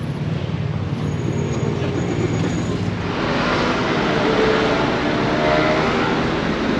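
Road traffic on a busy coastal road: a steady wash of vehicle noise with engines going by, growing louder about three seconds in.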